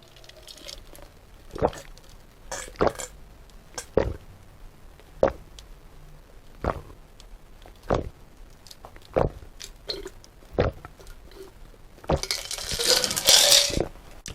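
A person gulping down cola, one swallow roughly every second and a quarter, nine in a row, followed near the end by a loud breathy exhale.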